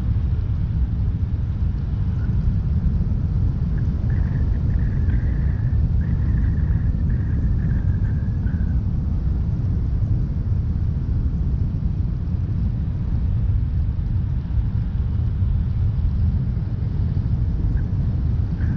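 Steady low rumble of a car being driven: road and running noise. A faint wavering high tone sounds for a few seconds near the middle.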